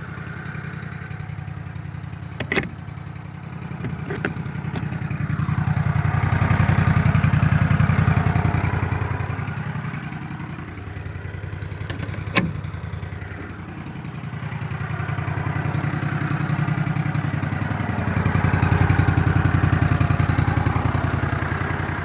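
Side-by-side utility vehicle's engine running while towing a chicken tractor, growing louder and fading back twice. A few sharp metal clanks from the tow hook, one about twelve seconds in.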